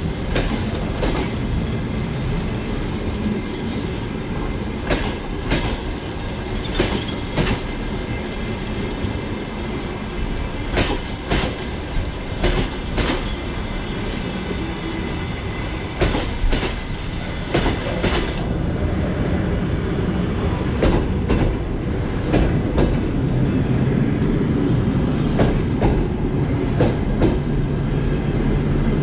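Passenger coaches of a departing train rolling past at low speed, their wheels clacking irregularly over the rail joints above a steady rumble.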